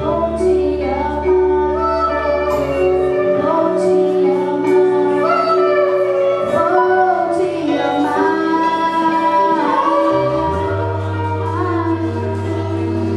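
A woman singing a slow melody over held instrumental chords and low bass notes, which change a few times.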